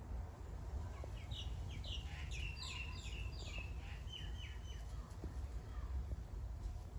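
A songbird sings a quick run of short, high chirping notes for about three seconds, starting about a second in, over a steady low rumble.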